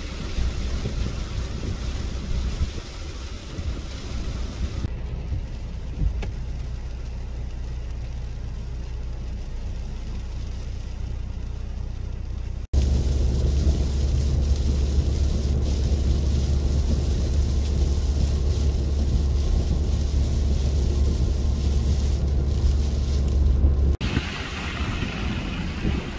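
Steady outdoor noise of a rainy day at first. About halfway through, it switches abruptly to a car driving on a wet road, heard from inside the cabin as a loud, steady low road rumble. Another abrupt switch near the end brings wind noise on the microphone.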